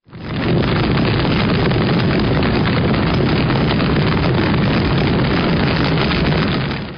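Logo sound effect: a steady, deep rumble that comes in quickly and fades out near the end.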